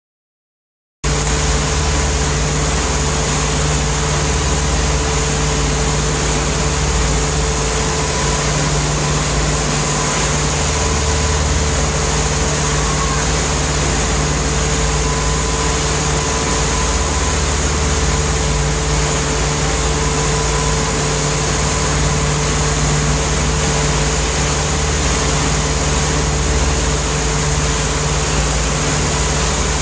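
Motorboat engine running steadily at towing speed, a constant drone with the rush of churning wake water beneath it; it starts abruptly about a second in.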